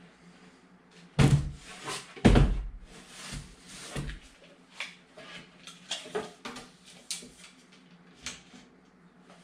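Two loud thumps about a second apart, followed by lighter, irregular knocks and clicks.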